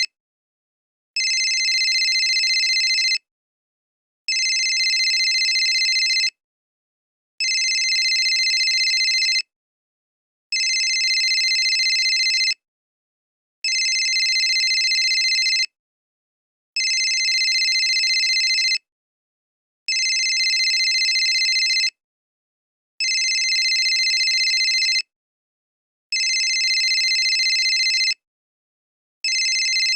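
Old cell phone ringing: an electronic ring of steady high tones, about two seconds on and one second off, repeated evenly about ten times.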